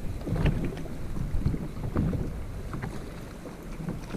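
Wind buffeting the microphone and choppy sea slapping against a jet ski's hull, an uneven low rumble with scattered small knocks.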